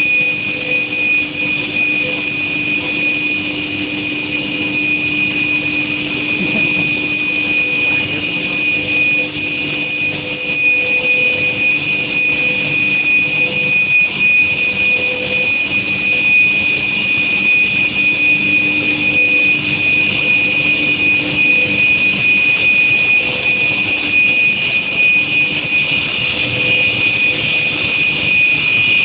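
Induction preheating furnace running, a steady high-pitched whine over a constant hiss, unchanging throughout.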